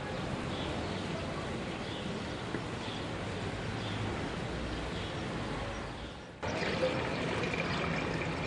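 Water pouring steadily from a stone fountain spout into a stone trough. The sound jumps abruptly louder and nearer about six seconds in.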